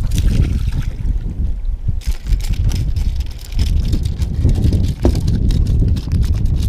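Wind buffeting the microphone in a loud, steady low rumble, with light clicks and taps over the top.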